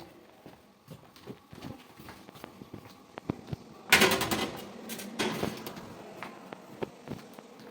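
Light knocks and footstep-like taps on a hard floor, with a loud clattering rattle about four seconds in and a smaller one about a second later.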